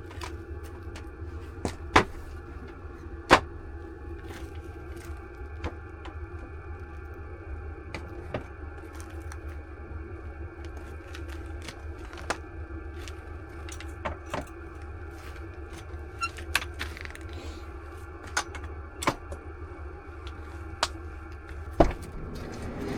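Scattered sharp clicks and taps, about eight of them, over a steady low hum.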